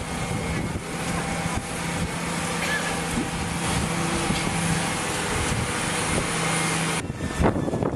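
Engine of a heavy wheeled tractor running steadily under load as it tows a boat on a trailer, a constant low drone over engine noise. The sound changes abruptly about seven seconds in.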